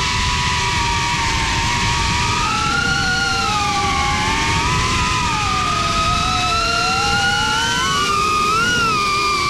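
Diatone Taycan cinewhoop drone's brushless motors and ducted propellers whining in flight, several close tones gliding up and down together as the throttle changes, over a steady low rumble.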